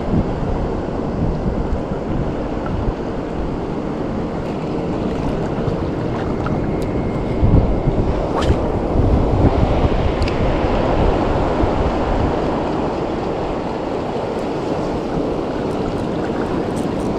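Sea water washing and lapping close by, with wind buffeting the microphone: a steady rush throughout.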